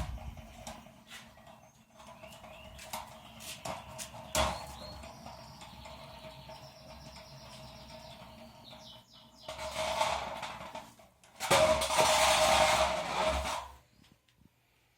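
Metal Beyblade spinning tops battling: scattered clicks and a sharp knock, a faint steady high whir, then two loud stretches of scraping and clashing near the end that cut off suddenly.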